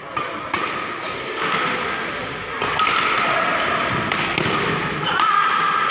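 Badminton rally: rackets sharply striking the shuttlecock several times, about a second or more apart, among thuds of players' footwork and high squeaks on the court mat.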